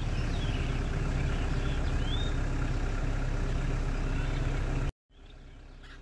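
Steady low rumble of a vehicle on the move, which cuts off abruptly about five seconds in and gives way to a much quieter low hum.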